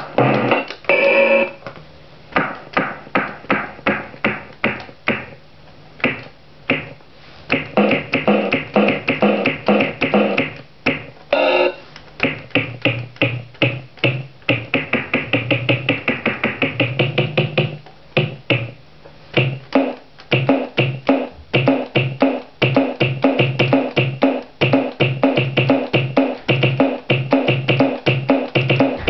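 Circuit-bent toy keyboard's square-wave synth playing a fast, stuttering pattern of repeated pulsed notes, a few per second, with brief gaps, while its added knobs bend the sound.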